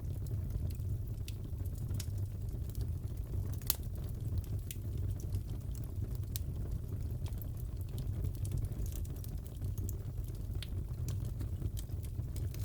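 Fireplace fire crackling: a steady low rumble of burning with scattered sharp pops and snaps, one louder pop a little under four seconds in.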